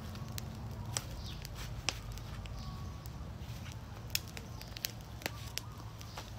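Cooking fire crackling, with irregular sharp pops scattered over a steady low background noise.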